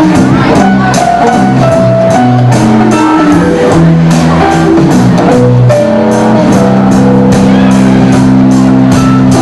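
Live rock band playing an instrumental passage, loud: guitar chords and long held notes over a steady drum-kit beat.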